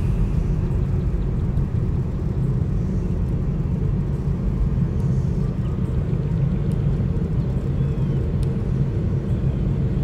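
Steady low road and engine rumble heard inside a moving car.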